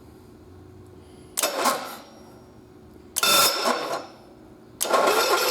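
1950s Cushman Truckster engine cranked by its starter with a newly replaced starter solenoid: two short cranks that don't catch, then on the third try, near the end, it fires and keeps running steadily.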